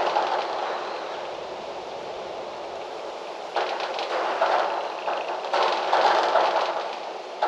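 Gusty wind rushing through trees, swelling in a gust about three and a half seconds in and again around six seconds.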